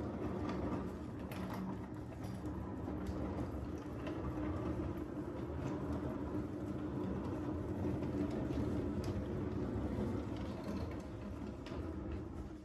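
Wheels of a wooden bar cart rolling over a hard floor, a steady rumble with a few light clicks and rattles.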